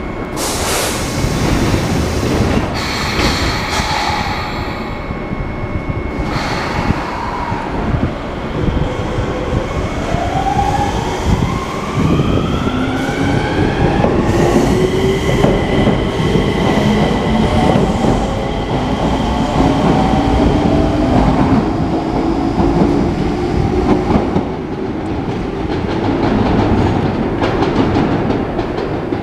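Enshu Railway electric train pulling away: the traction motor whine rises in pitch as it accelerates, several tones climbing together for about six seconds and then holding steady, over the rumble of the running train.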